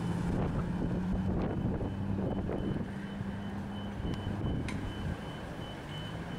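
A motor vehicle's engine running at a steady idle, a low even hum that weakens about three seconds in and comes back near the end, over street rumble.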